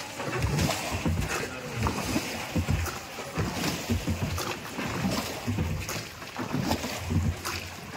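Rowboat's wooden oars dipping and pulling through the water in irregular splashing strokes, with low rumbling water noise around the hull.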